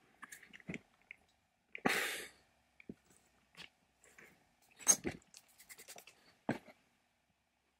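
Metal parts of a small drill's gear housing being handled and fitted by hand: scattered light clicks and clinks of metal on metal, with a short scrape about two seconds in and sharper clicks near five and six and a half seconds.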